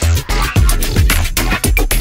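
Electronic dance music with a steady beat and heavy bass.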